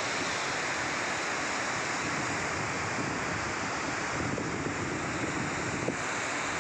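Fast mountain river rushing over rocks in white-water rapids, a steady noise of water, with wind buffeting the microphone now and then.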